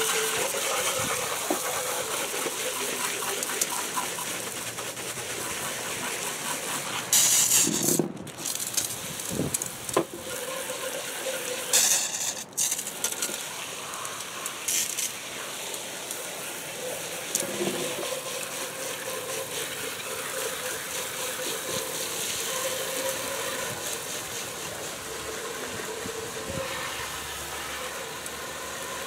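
Garden hose spray nozzle jetting water into and over a metal engine oil pan, rinsing metal shavings out of it: a steady hissing spray with several louder bursts of splashing.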